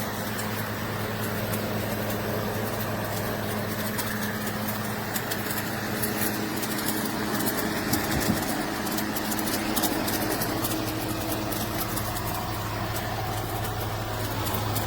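GE Profile ClearView inverter window air conditioner running: a steady rush of fan air over a low, even hum, with faint light ticks scattered through it.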